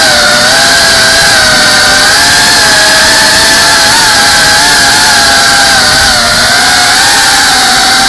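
CineLog 35 cinewhoop drone's brushless motors and ducted propellers whining loudly, heard close up from the onboard camera; the pitch wavers up and down as the throttle changes.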